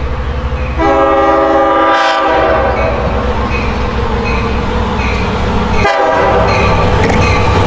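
Diesel passenger locomotive sounding its multi-note horn at a grade crossing: a long blast about a second in, then a short one near six seconds in, over the engine's steady low rumble. A crossing bell dings steadily in the background.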